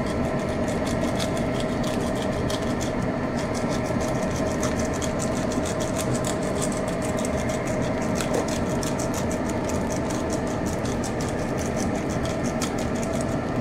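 A pepper grinder being twisted over a frying pan of rice, giving rapid dry clicking and crackling, over a steady hum.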